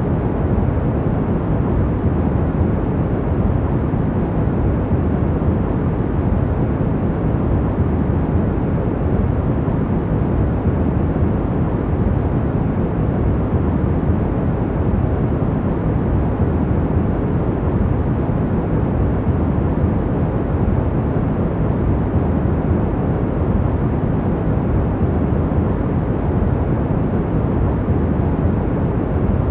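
Steady sleep noise: an even, unchanging rush that is deep and rumbling, with little hiss at the top.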